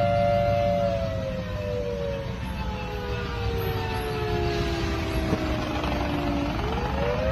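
Two-tone outdoor warning siren holding a steady chord, then sliding slowly down in pitch for about five seconds before winding back up near the end, over a steady low rumble.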